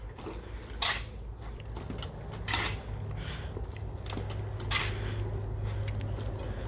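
A shovel scraping and scooping sand, one short gritty scrape about every two seconds, over a low steady hum.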